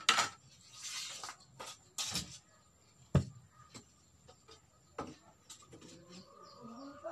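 Split bamboo strips knocking and scraping as they are handled and worked with a knife: a short scrape about a second in, a sharp knock about three seconds in and another about five seconds in.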